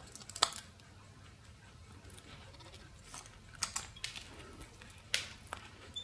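Pliers crunching and tearing the thin metal E14 screw base off a small LED filament bulb. Several sharp snaps and crackles of bending sheet metal, the loudest about half a second in and more near the middle and end.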